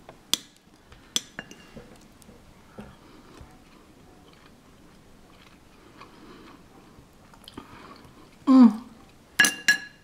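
A few metal cutlery clicks against a ceramic bowl, then quiet chewing of a mouthful of baked lasagna. Near the end comes a short voiced sound, then several sharp clinks as the fork is laid down in the bowl.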